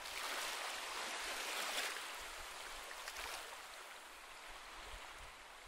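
Gentle sea waves washing onto a beach: the surf swells over the first two seconds, then slowly draws back and fades.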